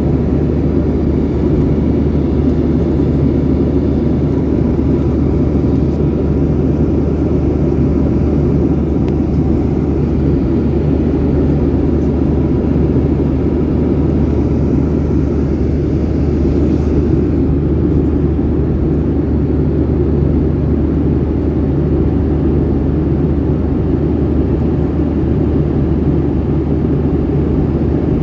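Steady jet-engine drone and rumble heard inside an airliner's passenger cabin.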